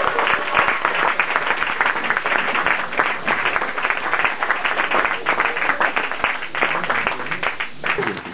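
Audience applauding, many hands clapping at once; the applause breaks off suddenly near the end.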